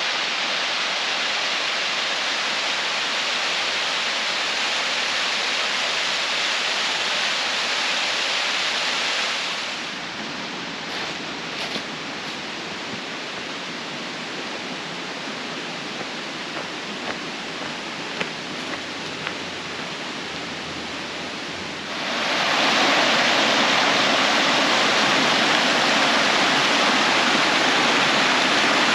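Rushing water with a steady hiss. It turns quieter about ten seconds in, with a few light clicks, and louder again about twenty-two seconds in.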